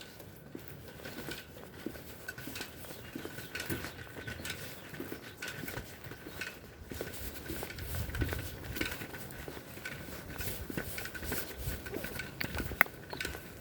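Footsteps and handling noise: a run of irregular light taps and clicks, with a faint steady high tone underneath.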